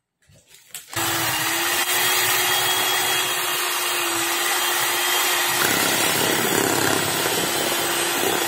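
Electric hand mixer switched on about a second in, then running steadily as its beaters whip cream cheese mixture in a glass bowl. Its hum changes about halfway through.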